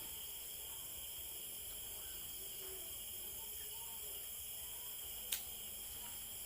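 Steady high-pitched insect chirring, with one sharp click about five seconds in.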